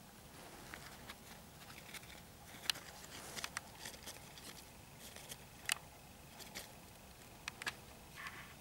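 Irregular light clicks and rustles close to the microphone, about a dozen scattered through, the sharpest two about a third of the way in and past the middle.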